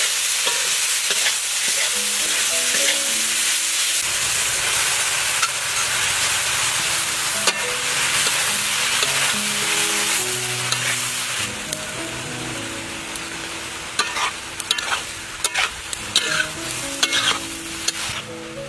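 Papaya flowers, meat and vegetables sizzling in a hot metal pan as a metal spatula stirs and tosses them. In the second half the sizzle eases a little, and sharp clicks and scrapes of the spatula against the pan come through.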